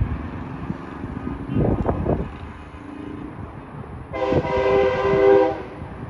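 A multi-tone vehicle air horn blasts once for about a second and a half, several pitches sounding together, over the steady rumble of passing road traffic.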